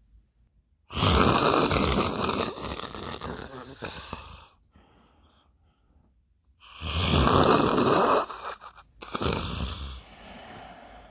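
A person doing loud, exaggerated comic snoring: a long snore of about three and a half seconds starting about a second in, a second long snore about seven seconds in, then a shorter one.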